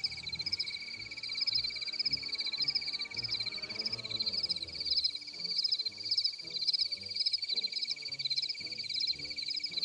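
Recorded cricket chorus: a steady high trill with rhythmic pulsing chirps above it, binaurally panned low and in front of the listener.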